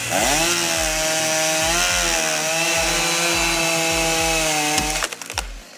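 Chainsaw revving up to full speed and running at high, fairly steady pitch under load as it cuts wood, then stopping abruptly about five seconds in.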